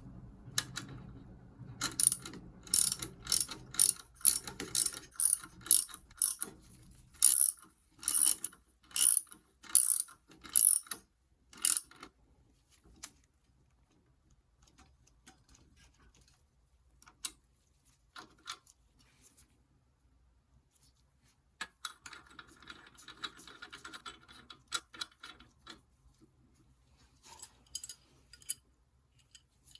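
A ratcheting mechanism clicking sharply, about two clicks a second for some ten seconds. It then falls to scattered single clicks, with a short rustling scrape a little past the middle, during work on a bicycle's crank and bottom bracket.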